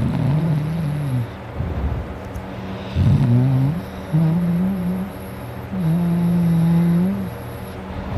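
A person snoring loudly in their sleep: several droning snores whose pitch wavers up and down, with rough, raspy breaths between them.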